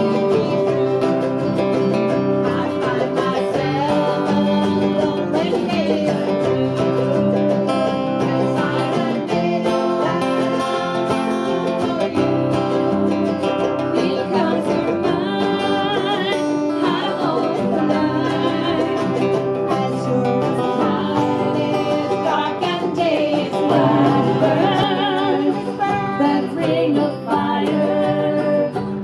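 Acoustic string band of ukuleles, a banjo and acoustic guitars strumming and picking a country-folk song together.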